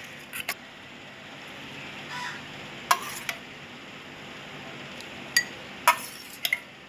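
A spoon clinking against a glass and a steel pot, about seven short, sharp clinks scattered over several seconds, as soft king coconut flesh is spooned into a glass. A steady low hiss lies underneath.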